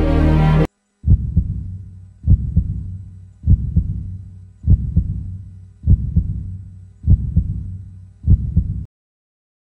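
Background music cuts off abruptly, then a heartbeat sound effect: seven slow low double thumps (lub-dub), about one every 1.2 seconds, before it stops.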